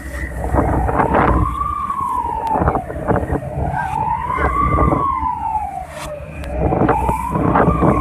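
Emergency alarm siren wailing in slow rises and falls, about one every three seconds, over a steady low rumble.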